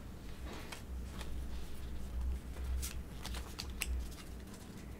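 Pokémon trading cards being handled and slid against each other, a scatter of light clicks and flicks, over a low steady hum.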